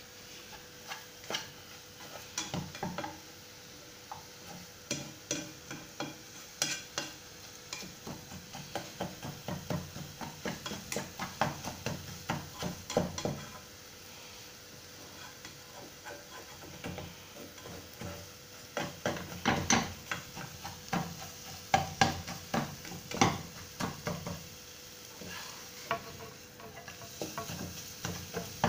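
Black plastic spatula stirring and scraping scrambling eggs in a non-stick pot, in irregular strokes over a light sizzle of frying, with a quieter spell of a few seconds around the middle.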